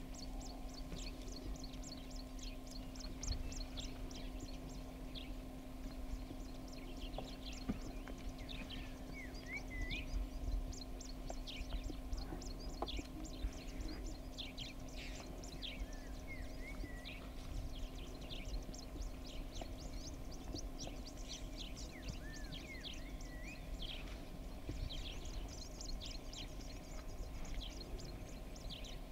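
Bush birds chirping and calling throughout, many short high notes with a few whistled glides, over a steady low hum and rumble.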